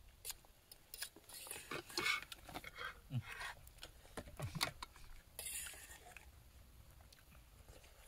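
Eating at a meal: chewing, with scattered clinks and scrapes of cutlery against a plate. Two short low hums come about three and four and a half seconds in.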